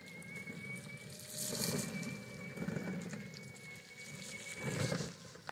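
Electric ride-on toy car driving on wet concrete: a steady high-pitched motor whine over tyre noise, the whine dropping away near the end.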